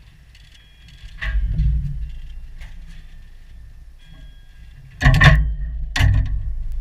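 Wind rumbling on the microphone, with a knock about a second in and two louder, sharp knocks about a second apart near the end.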